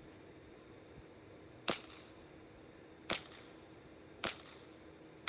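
Airsoft gun firing single shots: four sharp pops about a second and a quarter apart, the last at the very end.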